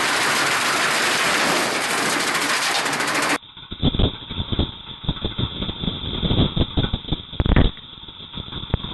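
Fair Snocrete 848A tractor-driven snowblower chewing into a car. For the first three seconds or so there is a steady, dense noise of the blower and tractor running under load. Then, heard from a small camera close in front of the blower, comes a fast, irregular run of knocks and thuds as it tears through the car.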